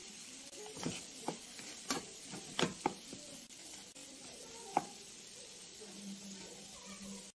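Spatula stirring chicken and peppers in sticky sauce in a nonstick pan, over a faint steady sizzle. About six sharp knocks and scrapes of the spatula against the pan are scattered through the first five seconds, the loudest between two and a half and three seconds in.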